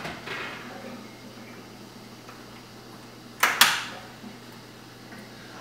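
Wire oven rack being moved up and set into a higher slot: two quick metal clanks a little past halfway, otherwise quiet room tone.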